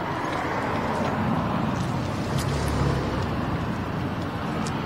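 Road traffic: a motor vehicle's engine rumbling past, swelling around the middle.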